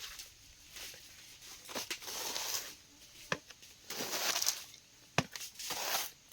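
Dry plant material rustling and crunching in repeated bursts, with a couple of sharp snaps near the middle.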